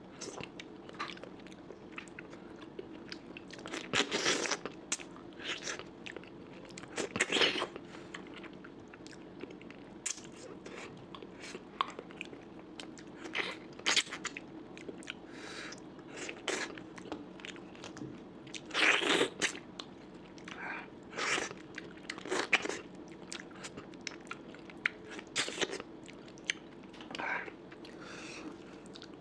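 Close-up chewing and eating sounds from a person's mouth, with irregular loud crunches and bites every few seconds.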